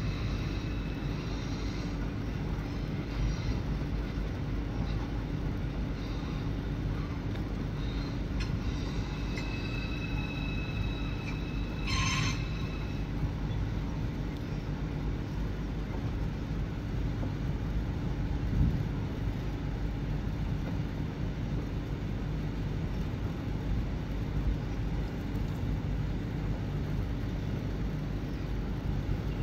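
ICE 4 (Class 412) high-speed train pulling slowly out of the station, a steady low rumble of its running gear on the rails. A faint high whine comes and goes twice, and a short sharp noise sounds about twelve seconds in.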